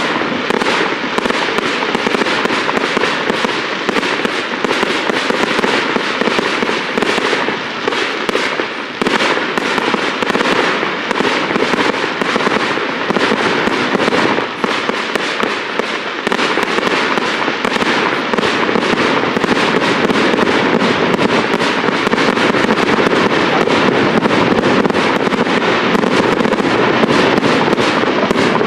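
Fireworks display: aerial shells bursting overhead in a dense, unbroken barrage of bangs and crackling, a little louder in the last third.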